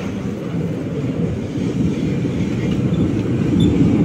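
BKM-60102 tram running along the track with a steady low rumble that grows a little louder near the end, with faint high squeaks near the end.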